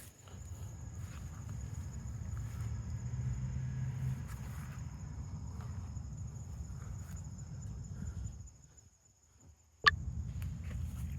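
Steady high-pitched trilling of insects such as crickets, over a low rumble that fades out briefly near the end. A single sharp click comes just before it resumes.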